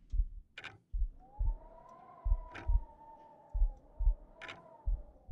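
Slow heartbeat sound effect: low double thumps (lub-dub) about every 1.3 seconds, four pairs in all. A sustained, slightly wavering tone comes in about a second in and holds until near the end.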